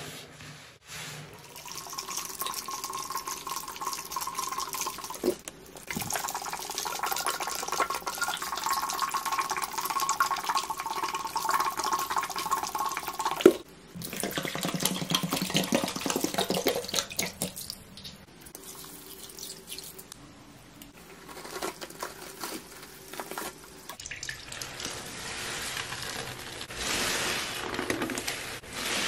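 Wet sponges being squeezed and wrung in a bowl of soapy water and cleaning liquid, with squelching and sloshing as suds and water run out. Several short takes follow one another with abrupt changes between them.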